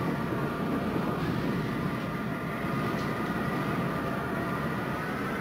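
Tornado wind roaring as a steady rushing noise, with faint high whistling tones running through it.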